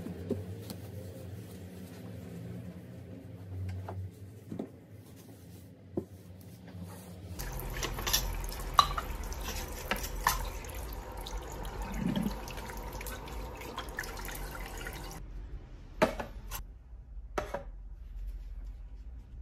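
Water running from a waterfall-spout faucet into a ceramic washbasin, starting about a third of the way in and shut off roughly eight seconds later. Light clicks and knocks of small items being handled on the counter come before it, and a few sharp clicks follow near the end.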